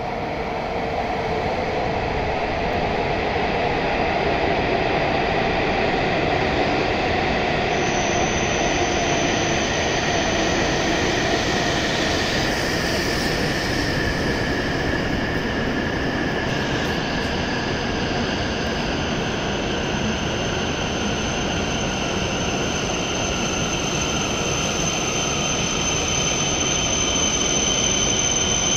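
E7 series shinkansen pulling into the platform and slowing: a steady rumble and rush of the cars going by, with a whine that falls slowly in pitch as the train brakes. A thin, high steady whistle joins about eight seconds in.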